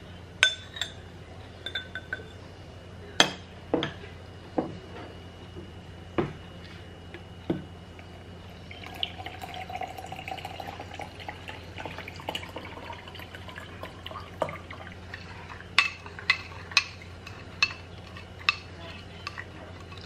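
A spoon knocks on a drinking glass several times as drink powder is added. From about 9 s to 14 s, water is poured from a plastic bottle into the glass, its pitch rising as the glass fills. Near the end the spoon clinks quickly against the glass while stirring the drink.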